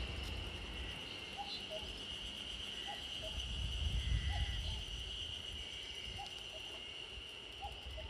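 Common cuckoo calling its two-note "cuck-oo", the second note lower, faint and repeated about five times at roughly one-and-a-half-second intervals.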